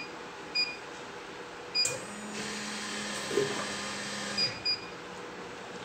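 Automatic tea and coffee vending machine: its keypad gives short high beeps as buttons are pressed, about four in all. From about two seconds in, the machine runs with a steady hum and hiss for about two and a half seconds, then stops.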